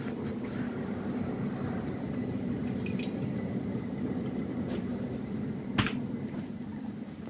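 Steady low background hum of a small shop, with a faint thin high tone for a couple of seconds, a few small clicks, and one sharp click about six seconds in.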